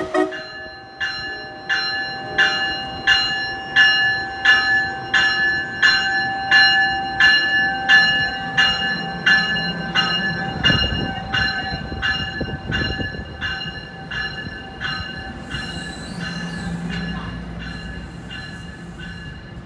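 A bell rings in even strokes, about one and a half a second, slowly fading, while an NJ Transit multilevel passenger train moves past with a low rumble.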